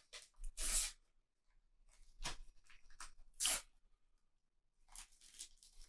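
Panini sticker packet being torn and fumbled open by hand: short bursts of tearing and rustling, the three loudest about a second apart, with softer rustling between them and near the end.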